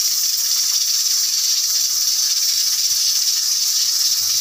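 Sliced onions, ginger and whole spices sizzling steadily in hot ghee.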